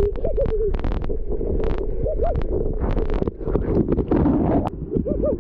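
Water rushing and gurgling close to the camera's microphone as a rider slides down a water-park body slide, with bursts of splashing. It ends in a splashdown about four seconds in.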